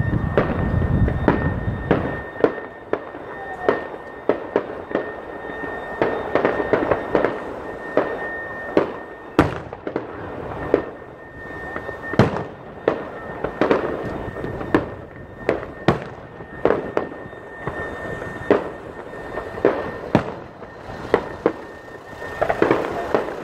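Fireworks display going off: a steady run of sharp bangs and pops, irregular at about one or two a second, over a haze of crackling.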